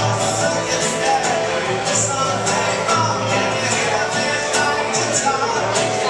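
Acoustic guitar played live and strummed in a steady rhythm, with a voice singing along.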